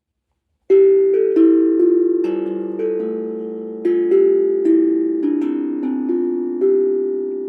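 Steel tongue drum being played: a slow melody of struck notes, each ringing on and overlapping the next as it fades, starting under a second in after silence.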